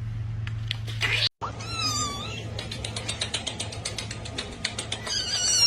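A cat meowing twice, once about a second and a half in and again near the end, with faint rapid clicking between the two calls.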